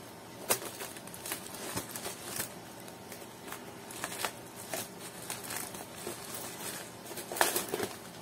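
A delivery package being opened by hand: irregular crinkling and tearing of the packaging with sharp clicks and rustles, loudest about half a second in and again near the end.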